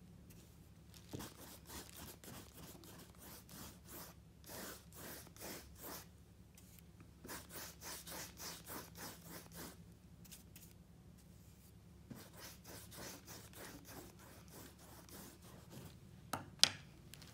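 Paintbrush bristles scrubbing white paint onto a canvas in quick strokes, coming in runs of about three to four strokes a second. There is one sharp tap near the end.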